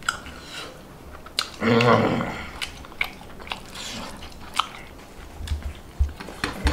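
A person eating with their hands: chewing, with scattered wet mouth clicks and smacks. About two seconds in comes a brief vocal murmur.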